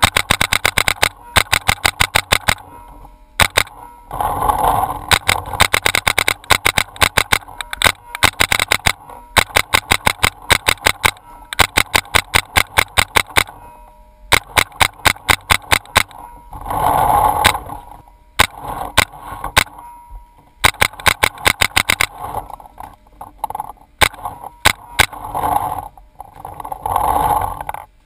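Paintball marker firing in rapid volleys, about ten shots a second, each volley lasting a second or two with short pauses between. A few short rushing noises come between the volleys.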